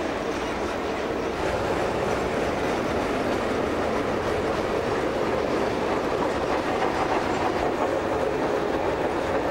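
Freight train cars rolling past: a steady noise of steel wheels on rail, with some clacking over the rail joints.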